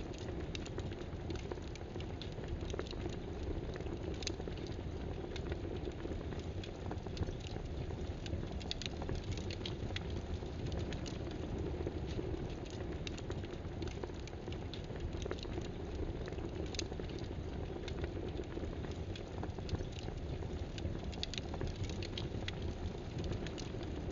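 A steady rushing hiss with scattered light ticks and pops, several a second, at irregular intervals.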